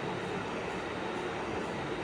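A steady mechanical running noise, even and unchanging, with no distinct knocks or pitch.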